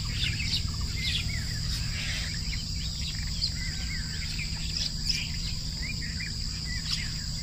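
Insects trilling steadily, with small birds chirping now and then over a low steady hum.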